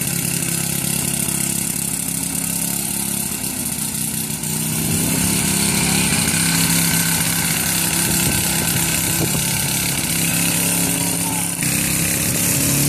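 Gasoline push lawn mower's small engine running steadily while mowing grass, getting louder about four seconds in.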